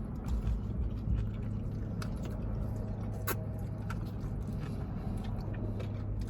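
People chewing and biting into spicy chicken sandwiches, with scattered small clicks, over a steady low hum like a car running.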